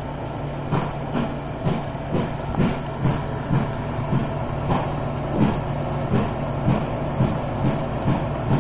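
Steady hum of a nano cube reef aquarium's running equipment (pump and fans), with a regular knocking about twice a second that starts about a second in.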